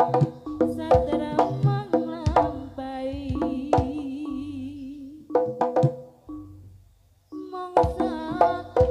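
Live Jaranan gamelan music: sharp kendang drum strokes over a wavering sung melody. The music fades out about six seconds in and cuts back in abruptly about a second later.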